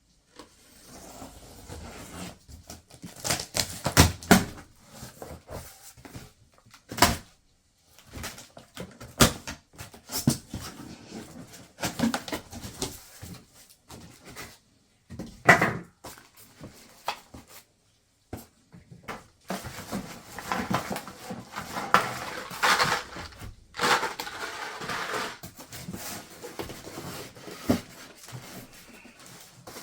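Unboxing a portable gas griddle: cardboard and packaging handled, with irregular knocks and thumps, and a longer stretch of rustling about two-thirds of the way through.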